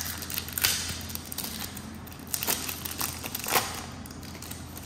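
A foil Pokémon TCG Evolving Skies booster pack being torn open, its wrapper crinkling as the cards are pulled out, with several sharp crackles.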